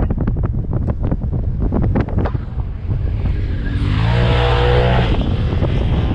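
Off-road vehicle engine running while driving over sand dunes, with wind buffeting the microphone and a steady stream of knocks from the bumps. About four seconds in, an engine revs up hard and holds for about a second under a rush of hiss.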